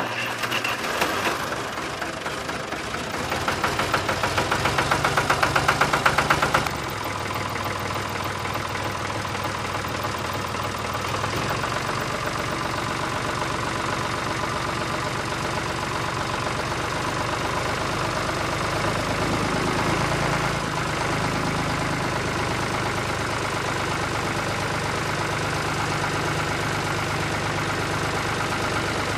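Diesel tractor engine running with a steady knocking beat, pulsing for the first few seconds before turning steadier after an abrupt change about seven seconds in.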